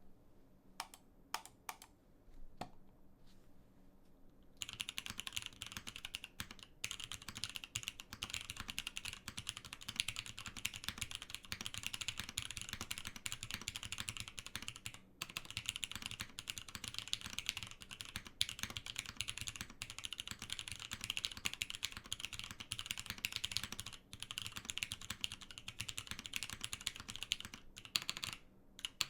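Spyder TKL mechanical keyboard with Cherry MX Nixie switches on a polypropylene plate, being typed on: a few single key presses, then fast continuous typing from about four seconds in, broken by brief pauses. Its typing sound is what the builder calls long-pole sounding.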